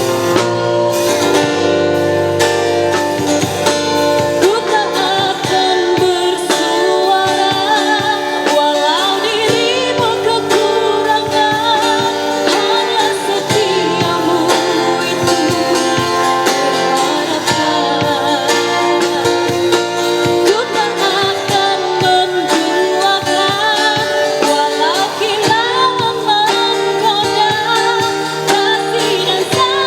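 A woman singing a song live with a street band's accompaniment of guitar and drums.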